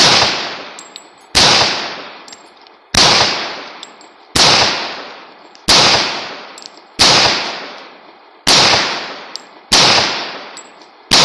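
A 1911 pistol in .45 ACP firing slow, steady single shots, about one every second and a half, eight in all, each followed by a long echo. The pistol is feeding reliably from a 15-round extended magazine with no misfeeds.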